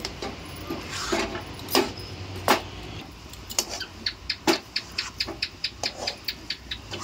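A metal spatula scraping and knocking against a metal kadhai as it stirs a thick rice flour dough. A few loud strokes come in the first half, then quick strokes, about four a second, from about halfway through.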